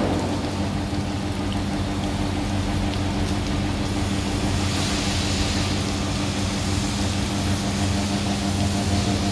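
AC roller seam welding machine humming steadily under a noisy hiss, with a brighter hissing stretch about five seconds in.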